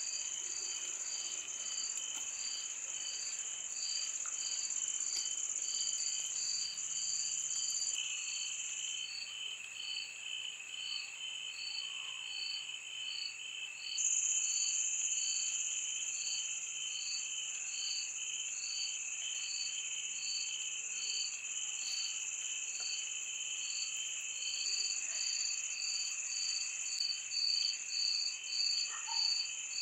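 Night chorus of crickets and other insects: a steady high-pitched buzz with a regular chirp about twice a second.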